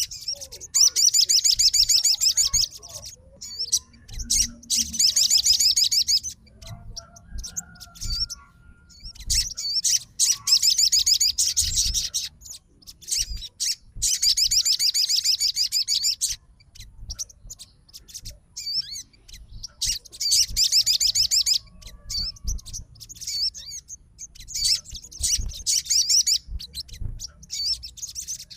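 Sogon bird calling in a series of loud, rapid, rattling high trills, each burst lasting one to three seconds, about seven in all with short pauses between.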